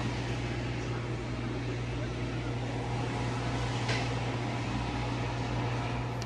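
Hooded salon hair dryer running: a steady rush of blown air over a constant low hum.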